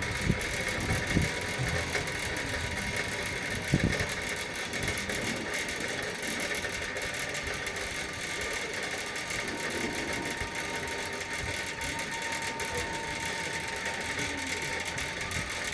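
Zipline trolley running along its steel cable, a steady whirring hum, with a few low thumps in the first four seconds.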